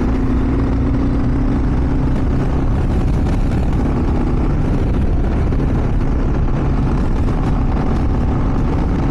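2023 Kawasaki KLR 650 S single-cylinder engine thumping along steadily while riding on the road, heard from the rider's seat with wind rushing over the microphone.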